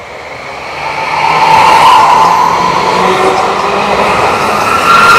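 Light rail vehicle approaching on steel rails and passing close by, its running noise growing loud over the first second and a half and staying loud as the cars go past, with a steady high whine over the rumble.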